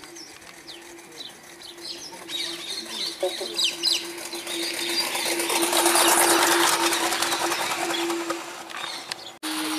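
A garden-scale model locomotive running over the track close by, its rapid fine clatter growing louder as it comes up, loudest about six seconds in, then easing off. Birds chirp throughout over a steady hum.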